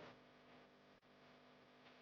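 Near silence: a faint, steady hum with a light hiss.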